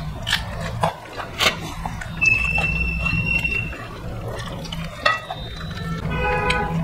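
Close-miked eating sounds: wet chewing, lip smacking and finger licking from people eating curry and rice by hand, heard as many short clicks. A thin steady high whistle-like squeak runs for about a second and a half from about two seconds in, and a short hummed voice sound comes near the end.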